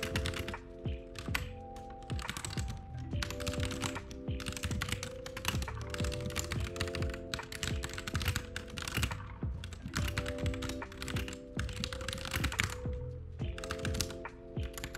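Fast, irregular typing on a computer keyboard, key clicks coming in quick runs, over lo-fi background music with sustained chords and a low bass line.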